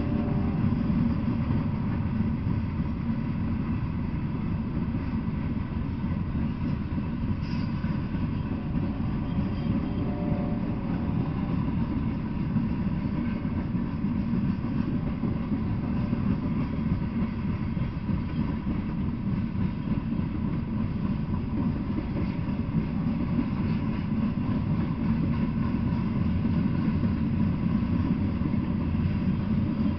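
Loaded coal hopper cars of a freight train rolling past: a steady low rumble of steel wheels on the rails.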